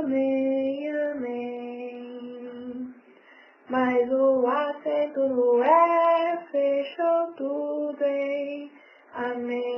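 A woman singing a slow melody alone, holding long notes with small glides between them. She pauses briefly about three seconds in and again near the end.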